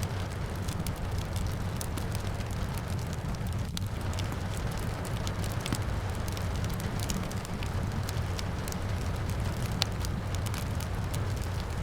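Fireplace fire crackling with scattered sharp pops, one louder pop near the end, over a steady hiss of rain and a low rumble.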